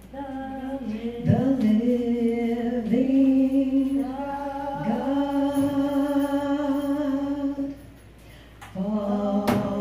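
A woman singing unaccompanied into a microphone in long, slow, held notes, pausing briefly about eight seconds in before taking up another note. A single sharp click sounds near the end.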